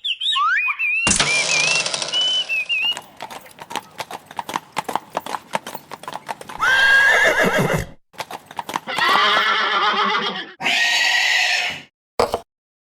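A horse neighing and whinnying several times, with a quick run of hoofbeats clip-clopping about three to six seconds in. The longest whinnies come near the middle and toward the end, the first of them sliding down in pitch.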